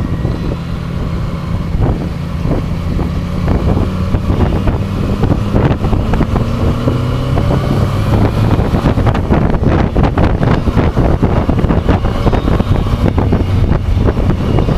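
Motorcycle engine running under acceleration, its pitch rising gently, then shifting from second to third gear partway through. Wind buffets the microphone more strongly in the second half.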